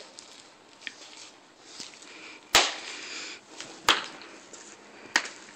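Three sharp knocks about a second and a quarter apart over a quiet background, the first the loudest.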